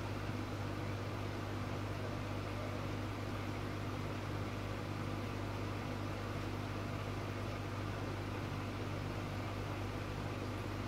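Aquarium air pump or filter running: a steady low hum over a constant hiss.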